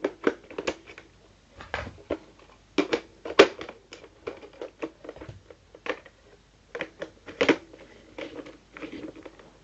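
Plastic Nerf Modulus blaster parts being handled and fitted: irregular clicks, knocks and rattles as attachments are pushed and snapped onto the blaster.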